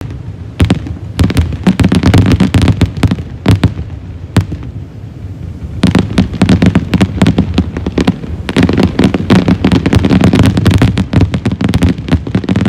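Fireworks display: aerial shells launching and bursting in quick succession, with many bangs overlapping. The bangs thin out briefly about four and a half seconds in, then pick up again.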